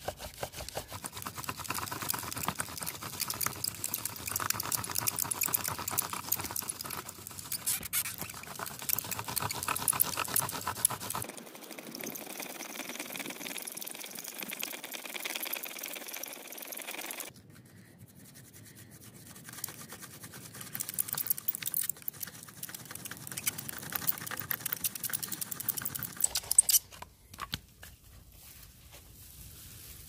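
Bow drill in use: the wooden spindle grinding and squeaking in the hearth board as the cord bow is worked back and forth, a fast rasping rub, with short breaks, that stops near the end.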